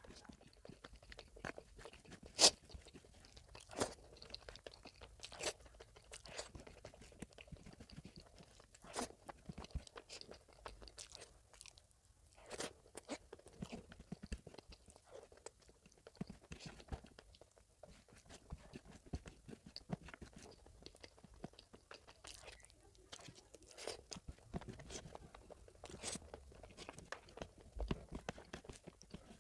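Close-miked eating of oily mutton fat curry and rice by hand: chewing with wet, irregular mouth clicks and smacks, one sharper click about two seconds in.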